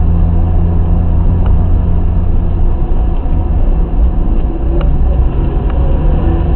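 Inside the cabin of a BMW E30 on the move: its 2.0-litre M50B20 inline-six runs at steady revs under a heavy low road rumble, with a few faint light clicks from the car.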